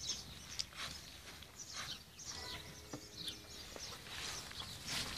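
Quiet footsteps and grass rustling as a wheelbarrow loaded with freshly cut grass is pushed over mown grass, in a series of short, soft, irregular sounds.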